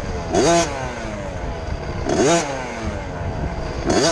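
KTM 50 single-cylinder two-stroke mini motocross bike engine revving up sharply three times, a little under two seconds apart, the pitch sliding down between each burst as the throttle is rolled off.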